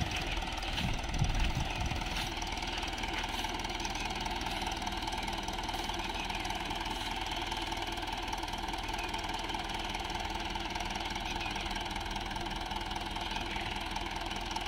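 Swaraj 843 XM tractor's three-cylinder diesel engine running at a steady speed, with a brief louder moment about a second in.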